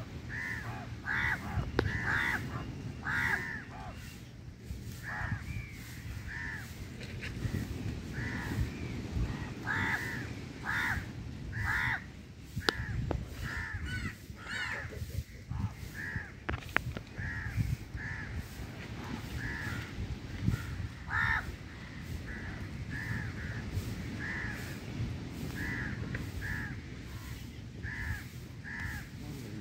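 Crows cawing again and again, short harsh calls about once a second, over a low background rumble.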